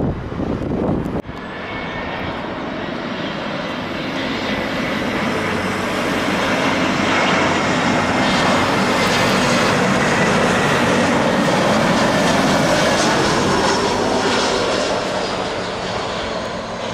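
Jet engines of a Boeing airliner passing on its landing approach: a broad jet roar swells over several seconds, is loudest about halfway through, then eases off, with a faint thin whine on top. Wind rumbles on the microphone for about the first second.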